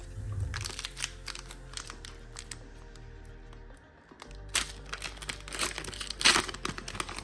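Foil Pokémon booster pack wrapper crinkling and being torn open by hand, in two bouts of crackling, the second louder, over steady background music.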